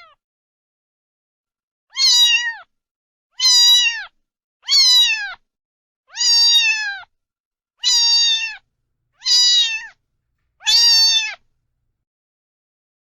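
A cat meowing seven times, about a second and a half apart, each meow dropping in pitch at the end.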